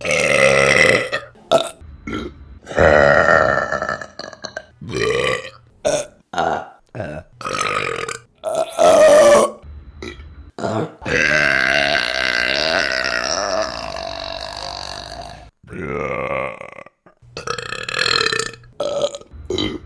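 Women burping: a quick string of separate short belches, then a single long drawn-out burp of about four and a half seconds a little past halfway, followed by a few more short ones.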